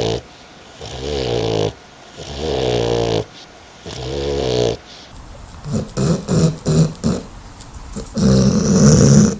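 Dog snoring: three long, drawn-out snores about a second and a half apart, then a run of short, choppy snorts, and one louder snore near the end.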